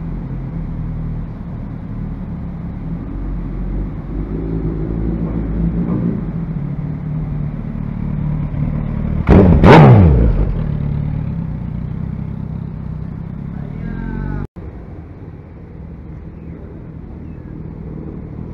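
Suzuki Hayabusa inline-four motorcycle engine blipped hard about halfway through, the revs falling away quickly, over a steady low engine rumble. The sound cuts out for an instant near the end.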